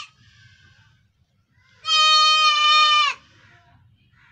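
Young goat kid bleating: one long call of just over a second, held at a steady high pitch and dropping slightly as it ends. It comes after the last moment of a previous bleat at the very start.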